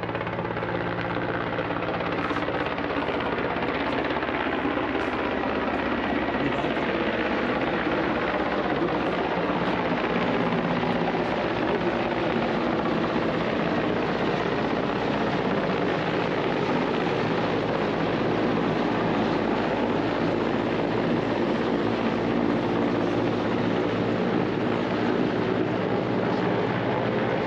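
Helicopter flying past overhead, its rotor and engine noise steady and loud.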